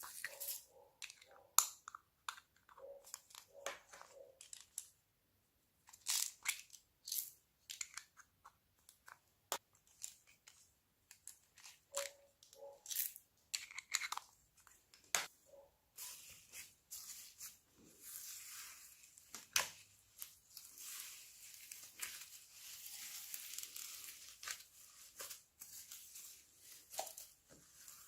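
Slime being worked by hand: quiet wet clicks, pops and squishes. About halfway through, a continuous fine crackling starts as it is stretched and pressed.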